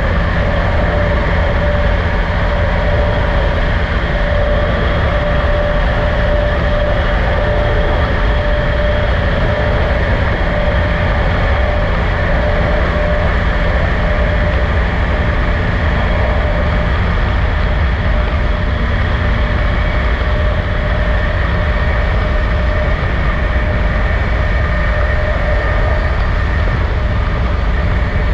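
Steady road and engine noise of a vehicle travelling at a constant speed: a continuous low rumble with a faint steady hum over it.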